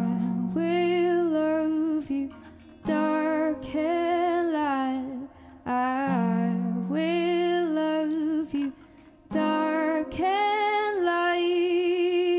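A woman singing slow phrases of long held notes, about four of them with short breaths between, over a nylon-string classical guitar.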